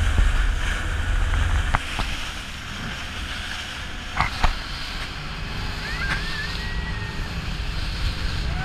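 Motorboat under way: the engine's steady low rumble under the rush of water and wind past the hull, with a few sharp knocks about two and four seconds in.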